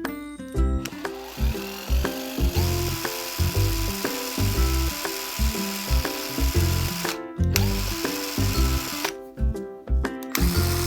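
Background music with a steady beat, over which a small cordless power driver's motor runs with a steady whine in a couple of long stretches.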